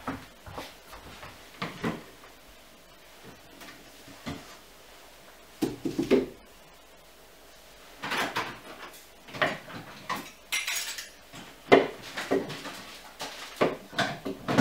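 Metal kitchenware clinking and clattering as it is handled and lifted out of a low cupboard, with scattered knocks in between; the loudest is a sharp knock about twelve seconds in.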